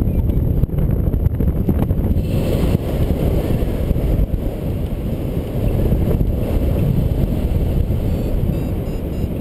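Airflow buffeting the microphone of a paraglider pilot in flight, a steady low rumble of wind noise. Faint, evenly spaced high beeps come in near the end, typical of a flight variometer.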